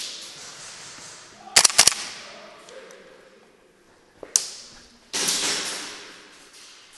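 Airsoft guns firing: a quick string of four or five sharp cracks about a second and a half in, then a single crack past four seconds. Loud swishing rustles at the start and again past five seconds.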